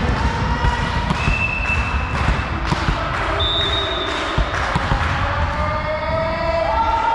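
Balls thudding as they bounce on a sports hall floor, echoing in the large hall, with a few short high squeaks.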